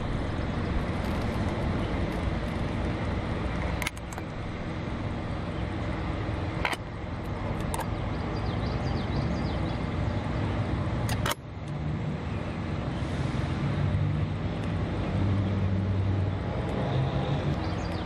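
Steady drone of vehicle engines and traffic, broken by three sharp clicks with brief dips in level.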